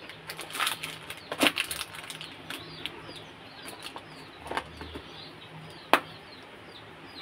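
Small plastic food containers being handled and their snap-on lids pressed shut: light rustling and several sharp plastic clicks, the sharpest about six seconds in.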